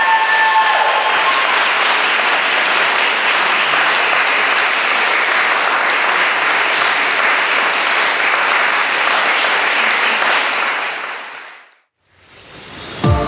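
Audience applauding at the end of a performance: steady clapping that fades out about eleven seconds in. The last notes of the routine's music ring out in the first second, and a new music track starts just before the end.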